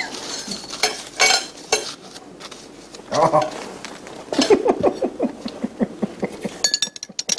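Table knife and fork scraping and clinking against a ceramic plate as food is cut, in a few short scrapes over the first two seconds and a quick cluster of clicks near the end. A voice talks low in between.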